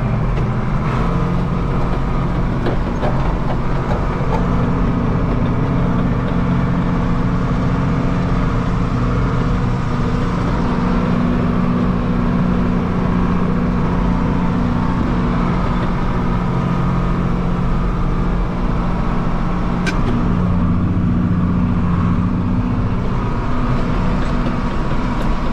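Farm tractor engine running steadily under load while it pulls a load of manure through drifted snow.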